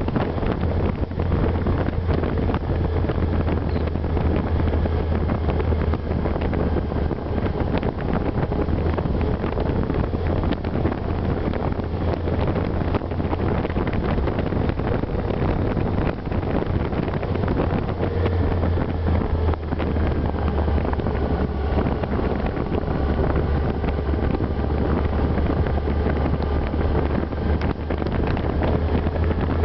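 Wind buffeting the microphone on a moving motorcycle, over the steady run of a Yamaha GTS-1000's inline-four engine at cruising speed; the engine note wavers in pitch in the second half.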